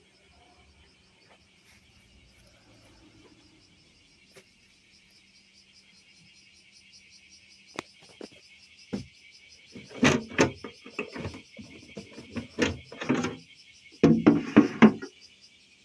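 Insects, likely crickets, chirring steadily and high-pitched. In the second half come a series of sharp knocks and clatters in three clusters.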